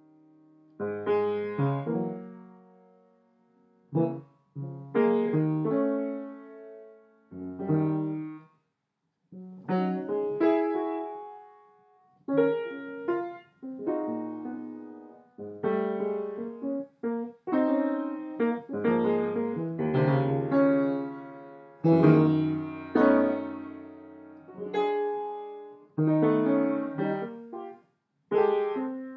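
Piano playing: chords and short phrases struck and left to ring out, with brief silent gaps between phrases.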